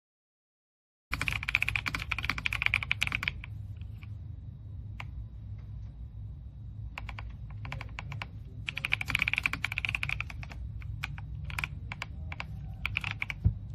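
Typing on a mechanical keyboard, starting about a second in: two fast runs of keystrokes, the second near the middle, with scattered single key presses between and after.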